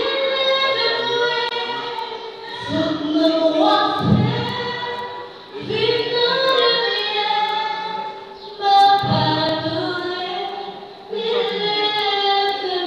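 A young woman singing solo into a handheld microphone, in phrases of long held notes with short breaks between them.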